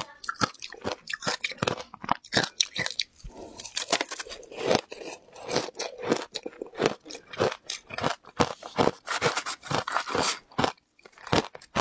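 Close-miked crunching and chewing of a mouthful of shaved ice with passion fruit pulp: many rapid, irregular crunches, with a short lull near the end.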